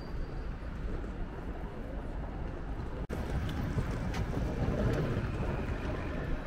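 Steady low rumble with wind noise on the microphone, broken by a sudden brief dropout about three seconds in, with a few faint clicks after it.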